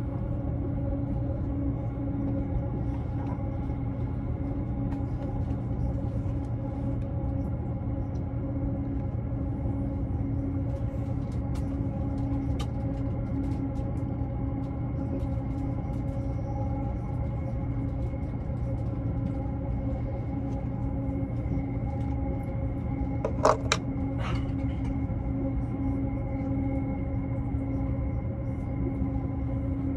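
Cabin noise inside an E353 series limited express train: a steady low rumble with a constant hum at fixed pitch, and two sharp clicks about three-quarters of the way through.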